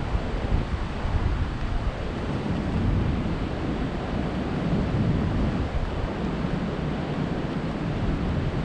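Heavy post-typhoon surf breaking against sea cliffs, a continuous low rushing that swells and eases, with wind buffeting the microphone.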